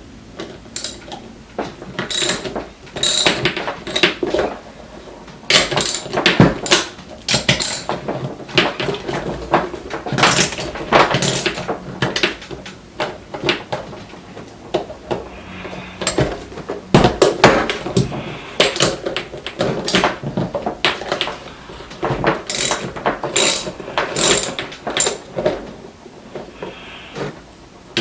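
Metal clinks and knocks of a skate tool working the axle nuts while a roller skate wheel is loosened and refitted, with parts rattling in the hands.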